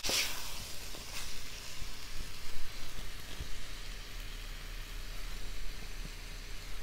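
Chicken pieces sizzling in oil in a heavy black pan, a steady hiss, as the chicken releases its own water while it fries without added water. A wooden spatula scrapes through the pan at the start and again about a second in.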